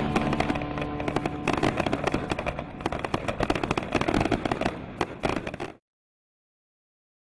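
Fireworks crackling in a dense, rapid patter of small cracks, with the tail of held music notes underneath during the first second and a half. The crackling cuts off suddenly about a second and a half before the end.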